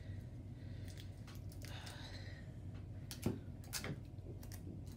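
Handling of paper and sticky tape on a tabletop: a few small clicks and taps and a brief soft rustle, over a steady low hum.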